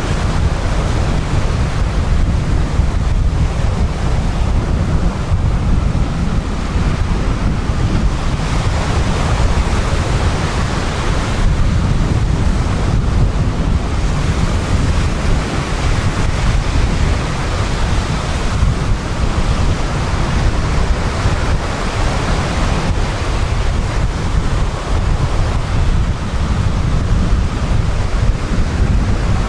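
Sea waves breaking and washing up a beach, the surf hiss swelling and falling back with each wave. Wind buffets the microphone throughout with a heavy low rumble.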